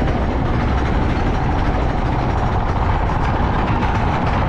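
SDC Windstorm roller coaster train running, heard from the front seat: a steady, loud mechanical rumble and clatter that does not change through the moment.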